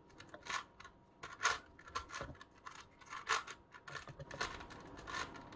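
Crazy 3x3x3 Mercury plastic puzzle cube having its layers turned by hand: a run of irregular clicks and scrapes, a few a second.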